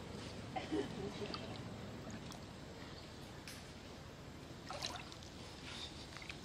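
Shallow stream water lapping and trickling, with small splashes about a second in and again about five seconds in.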